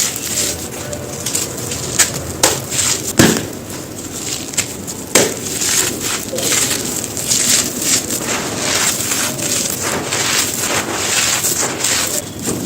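Soft, dry stone pieces being crushed and crumbled: a dense run of crunches and crackles with sharp snaps, the loudest about three seconds in.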